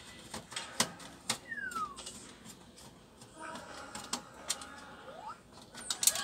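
Scattered clicks and light knocks of hands handling the CPU cooler and its fan cable inside an open desktop PC case.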